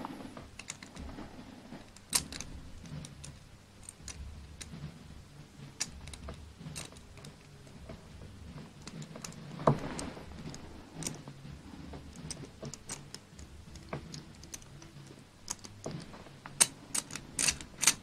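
Cast-metal pieces of a Hanayama Cast Padlock puzzle clicking and tapping against each other as they are twisted by hand. There are scattered light clicks, one with a brief metallic ring about ten seconds in, and a quicker run of clicks near the end as the pieces come apart.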